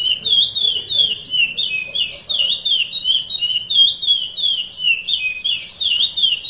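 Curió (chestnut-bellied seed finch) singing the Paracambi 'rompe nuvem' song: a fast, unbroken run of clear, high whistled notes, each swooping down and back up, several notes a second.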